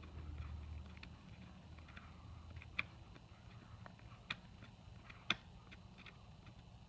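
A schnauzer gnawing an elk antler: scattered clicks and knocks of teeth on antler, with a few sharper ones in the middle of the stretch.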